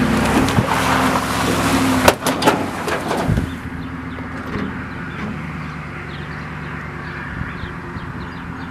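Pickup truck engine running while pulling a hitch-mounted root-digging tool, loud with rough noise for the first three seconds, then settling to a quieter steady run. A few sharp knocks come about two seconds in.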